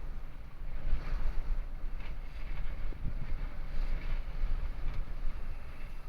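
Wind buffeting the microphone over a steady low rumble, rising and falling in gusts.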